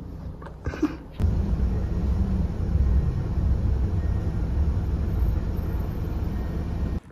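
Steady low rumble of a moving bus, engine and road noise heard from inside the passenger cabin. It starts suddenly about a second in and cuts off just before the end.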